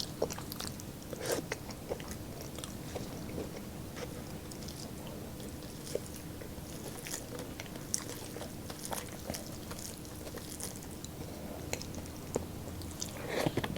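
A person chewing and biting food close to the microphone: quiet chewing broken by scattered small crunches and mouth clicks.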